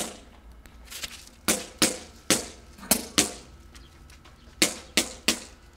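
About nine sharp cracks in quick, uneven groups of two or three, each dying away briefly.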